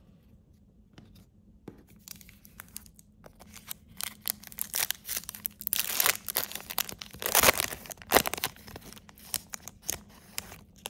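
Foil wrapper of a Topps Chrome trading card pack being torn open and crinkled. A few light crackles come first, then from about four seconds in there is dense tearing and crinkling, loudest just before it stops near the end.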